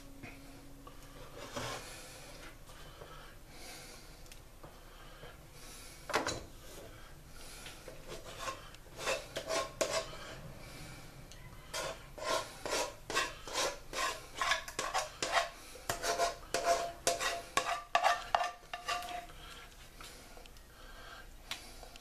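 A metal spoon scraping the last of the cream of mushroom soup out of its can. There is a single knock about six seconds in. Then, from about eight seconds in until near the end, comes a run of quick scrapes on the can with a faint metallic ring, about two a second.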